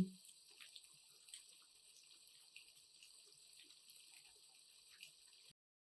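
Faint sizzling of rice, mushrooms and onion frying in oil in a pan, a soft steady hiss with occasional small pops, cutting off abruptly just before the end.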